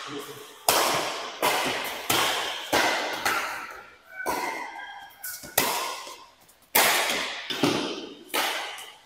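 Badminton rackets hitting a shuttlecock back and forth in a quick rally: about a dozen sharp smacks, roughly one every two-thirds of a second, each ringing out briefly in a large hall.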